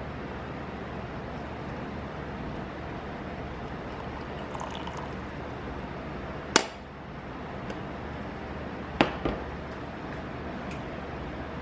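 Steady background hiss with two sharp clinks of a hard object, about six and a half and nine seconds in, the second followed quickly by a smaller knock.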